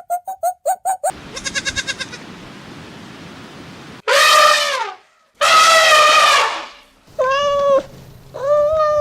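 A farm animal bleating four times in loud, high-pitched calls, each half a second to a second and a half long, starting about four seconds in. In the first second there is a quick run of short, rapid animal calls.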